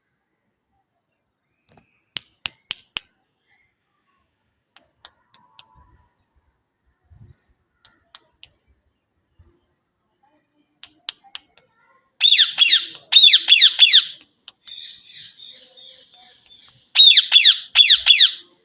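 Green parrot calling: a few small groups of short sharp high chirps, then two loud runs of rapid, repeated squawks, each about two seconds long, with quieter chattering between them.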